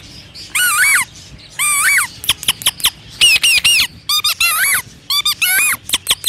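A man mimicking bird calls with his voice into a microphone: about six short, high, warbling calls, each rising and wavering in pitch, with sharp clicks between them.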